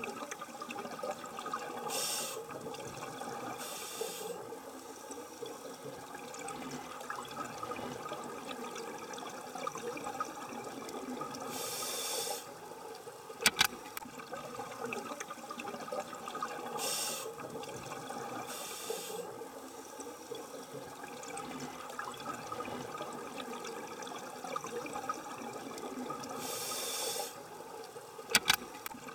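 Underwater sound: a steady watery noise with hissing rushes every few seconds. Sharp clicks come twice, about halfway through and near the end.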